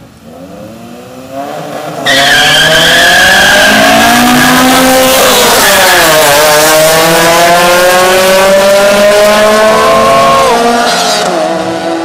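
Two Honda street-race cars launch side by side from a standing start with a sudden loud burst of tyre squeal. Their engines rev higher and higher, dip at an upshift about five seconds in, then climb again before easing off near the end.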